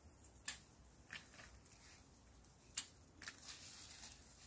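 Near silence broken by about four faint, sharp clicks, the loudest near three seconds in: hand pruning shears snipping ripe mandarin stems off the branch.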